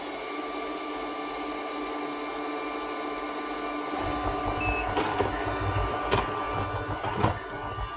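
ANNEW robot vacuum running in its focus (spot-cleaning) mode: a steady motor hum and whine. About halfway through a short beep sounds, a lower rumble joins in, and a few sharp knocks follow.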